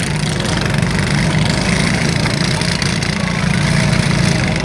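Several small riding-lawn-mower engines running together in a steady, dense drone.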